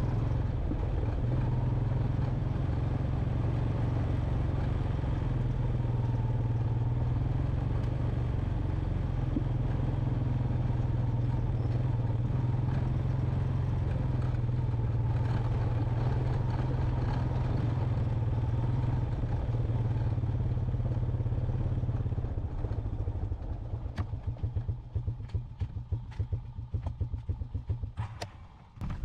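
Honda Recon 250 ATV's single-cylinder four-stroke engine running steadily along a rough dirt trail. About three quarters of the way through, the engine note drops off and turns uneven, with some clatter, as the quad slows to a stop.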